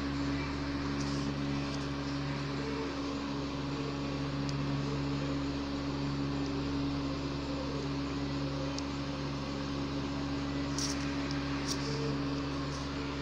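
Steady low electrical hum with a constant hiss, and a few faint ticks.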